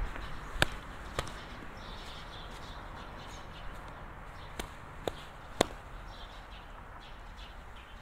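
Walking footsteps: two steps in the first second or so, then three more about half a second apart a few seconds later. Faint bird chirps are heard in between over a quiet outdoor hiss.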